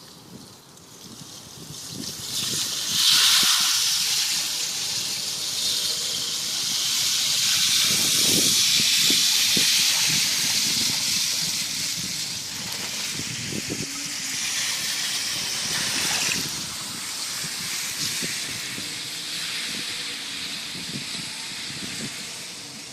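The last of the spring ice drifting off and breaking up, its fragments jostling together in a high hissing, tinkling shimmer that swells about three seconds in and slowly eases toward the end.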